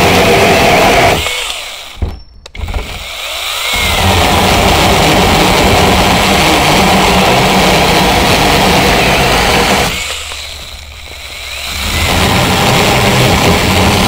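IMOUMLIVE 6-inch 21-volt brushless cordless mini chainsaw running with its chain cutting into a hardwood branch about 2 inches thick. The motor dies down with a click about a second in and comes back up about two seconds later, then eases off once more around ten seconds in before picking up again.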